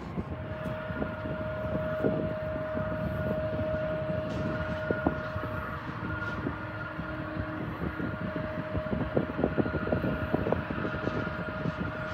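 Jet airliner engines running with a steady whine at two pitches over a low rumble.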